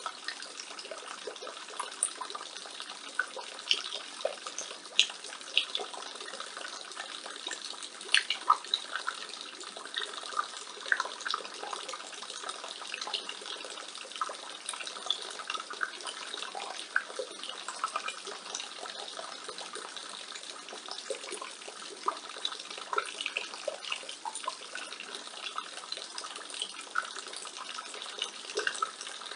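Rainwater pouring from a roof gutter, splashing and trickling steadily, with many small irregular splashes.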